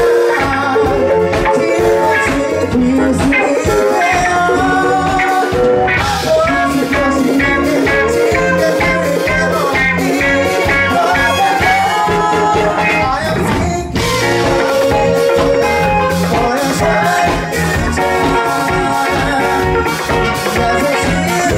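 Live band music: a male lead singer sings over a band with trumpet, electric guitar and drum kit.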